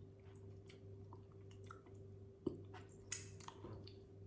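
A person eating seafood close to the microphone: faint wet clicks and smacks of chewing, with a sharper click about two and a half seconds in and a short cluster of clicks soon after, over a steady low hum.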